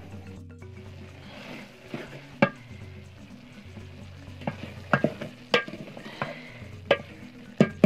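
Wooden spoon stirring boiled beans in a metal pot, scraping through the beans and knocking sharply against the pot's side: once about two seconds in, then several times in quicker succession in the second half. Quiet background music plays underneath.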